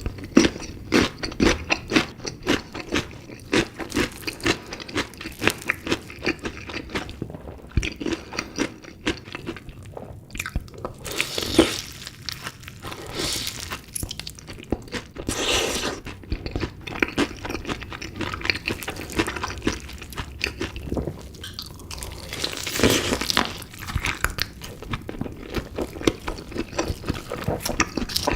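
Close-miked eating of chicken pieces in spicy sauce: crunching bites and chewing, with many sharp crunches in quick, irregular succession.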